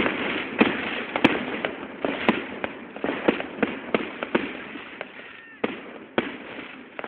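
Aerial fireworks going off in a rapid barrage of bangs and crackles, dense at first and thinning and fading toward the end, with a brief whistle about five seconds in.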